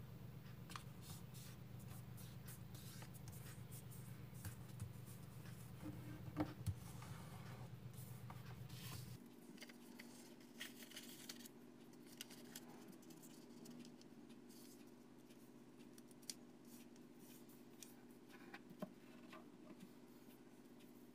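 Faint crinkling and rustling of a square of origami paper being folded and creased by hand, with a few sharper crackles about six seconds in. A low steady hum sits underneath and shifts higher about nine seconds in.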